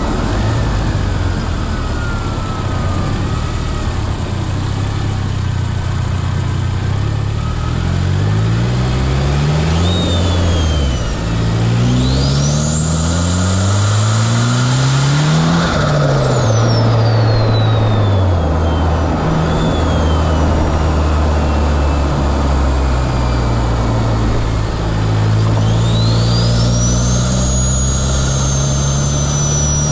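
Turbocharged car engine accelerating hard through the gears, its revs climbing and dropping back at each shift. A high turbo whistle sweeps up sharply as the turbo spools, about halfway through and again near the end, and slides slowly down in between as it spools down.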